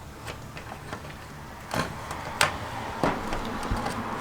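Light knocks and rustling from cable being fished through the van's body cavities, with three sharper knocks in the middle of the stretch.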